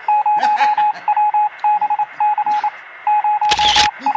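Mobile phone keypad beeps: runs of quick, short beeps all at one pitch as the keys are pressed in texting. There is a short loud burst of hiss about three and a half seconds in.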